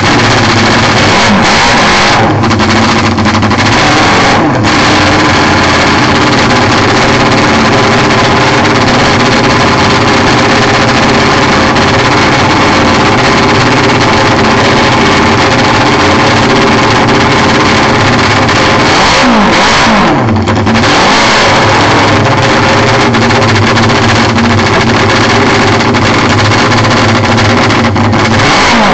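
Classic Benelli racing motorcycle engine running loud and held at high revs, with the pitch falling and climbing again as the throttle is blipped a few seconds in, about two-thirds of the way through, and near the end.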